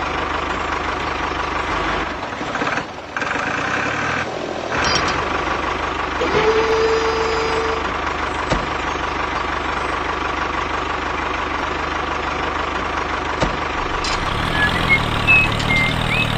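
A vehicle engine idling steadily, briefly cut off twice about three and four and a half seconds in, with a short steady tone about six seconds in.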